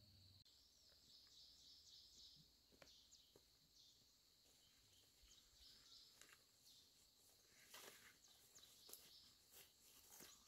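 Near silence: faint outdoor ambience with high, intermittent chirping. From about eight seconds in there are faint footsteps and rustling in undergrowth.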